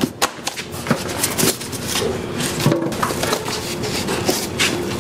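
Kitchen work: irregular knocks and clicks of a knife and utensils on a cutting board, over a faint steady hum.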